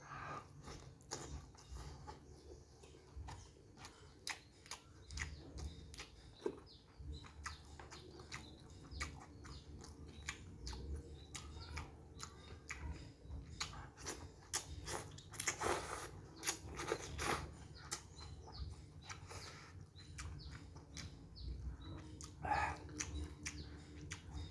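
A person chewing a handful of rice eaten by hand, with a steady run of small mouth clicks that grows louder for a few seconds past the middle.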